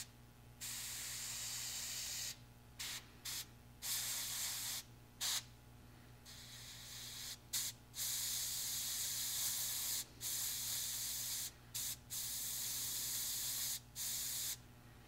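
Gravity-feed airbrush spraying thinned yellow zinc chromate lacquer in about a dozen on-off bursts of hiss, some brief and some a couple of seconds long, as the trigger is worked for small touch-ups. A steady low hum runs underneath.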